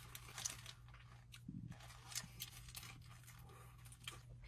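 A person chewing a bite of cheeseburger: faint, scattered mouth clicks and soft crunches over a low steady hum.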